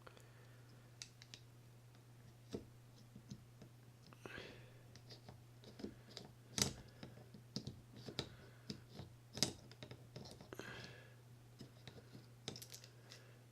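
Faint, irregular clicks and short scrapes of a flathead screwdriver working against the small metal parts of a Shimano Citica 200D baitcasting reel, loosening the pawl cap, over a steady low hum.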